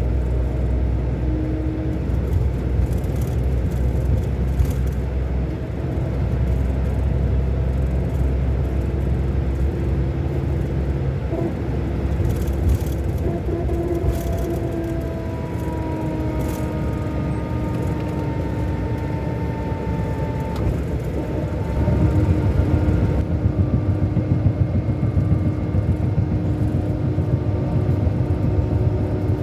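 Scania K400 Euro 5 bus's inline-six diesel engine running under way, a steady low rumble whose tones slide up and down in pitch as engine speed changes. It grows louder and deeper about three-quarters of the way through.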